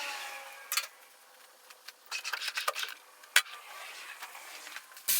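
Metal fork tube being worked through a motorcycle's triple-tree clamps: scraping and rubbing with scattered clicks and knocks. There is a short squeak of metal sliding at the start and one sharp knock about three and a half seconds in.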